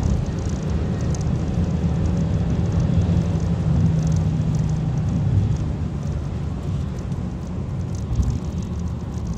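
Engine and road noise inside the cabin of a Kia cee'd GT at track speed, its 1.6-litre turbocharged four-cylinder pulling steadily, a little quieter in the second half.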